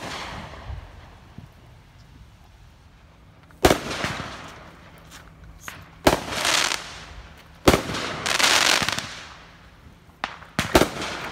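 Aerial fireworks going off: about five sharp bangs spaced a few seconds apart, the last two close together. Two of the bangs trail off over a second or so.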